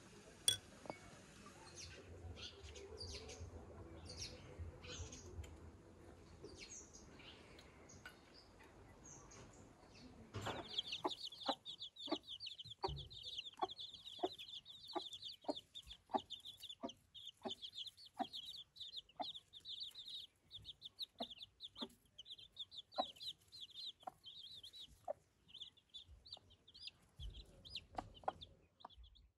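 Domestic chicks peeping continuously in a high pitch while a mother hen clucks in a steady run, about one to one and a half clucks a second. This starts about a third of the way in, after a faint stretch with one sharp click near the start.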